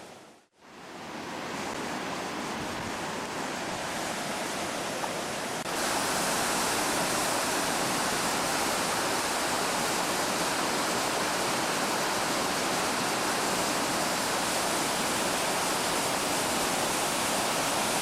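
Floodwater rushing in a swollen river, a steady rush of noise that gets louder about six seconds in.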